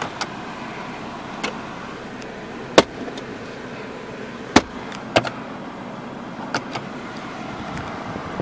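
Sharp plastic clicks and knocks, about six of them, from a car's glove box and centre console lid being shut and opened, the loudest about three seconds in. Under them runs the steady hum of the Toyota RAV4's idling engine and air-conditioning fan inside the cabin.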